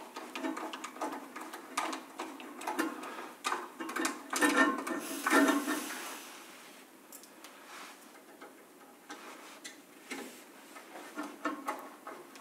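Irregular small clicks, taps and scrapes of a screwdriver and metal chassis parts while M3 self-tapping screws are driven into plastic. The clicks are busiest in the first half, with a brief scraping cluster around the middle, then go quieter before a few more clicks near the end.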